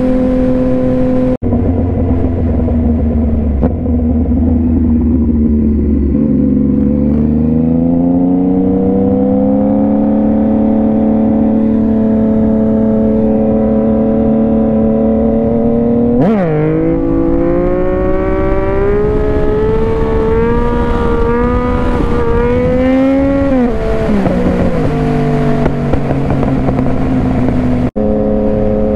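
Yamaha FZ-09's 847 cc inline-three engine heard from the rider's seat while riding. It pulls up through the revs, holds a steady cruise, gives a sharp snap about halfway, then climbs again in steps through the gears before easing off near the end.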